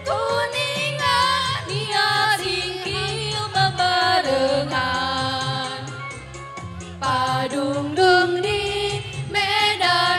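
Women's choir singing a melody together over instrumental accompaniment with a steady low bass.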